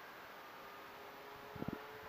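Faint steady hum of a distant electric RC model plane's brushless motor and propeller over a hiss of wind, with a couple of low knocks about one and a half seconds in.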